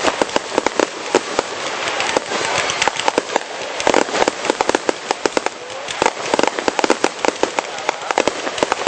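Fireworks going off in quick succession: a dense, unbroken run of sharp bangs and crackling reports, many each second.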